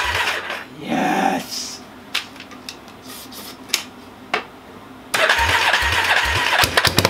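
Yamaha Warrior 350's single-cylinder four-stroke engine being cranked over on its electric starter with a rhythmic chugging, without starting. It spins in a short burst, goes quiet for a few seconds apart from a few clicks, then cranks again from about five seconds in, on a start attempt after a top-end rebuild.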